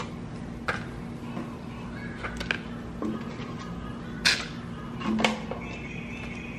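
Pieces of cooked chicken breast set down with tongs on a plastic cutting board: a handful of soft knocks and clicks, the loudest two about four and five seconds in, over a steady low hum.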